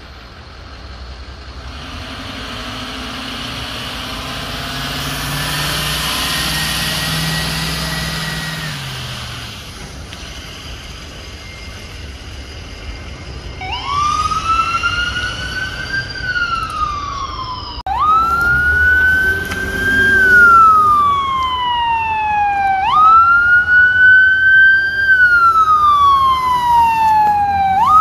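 Seattle Fire Department Medic One ambulance pulling away, its engine and traffic noise swelling and fading. Then its siren wails, each cycle jumping up quickly and sliding slowly down, repeating about every five seconds and growing loud toward the end.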